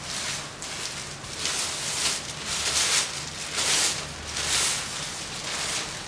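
Clear plastic wrapping rustling and crinkling as it is handled and pulled off a rolled projection-screen fabric, in several louder swells through the middle.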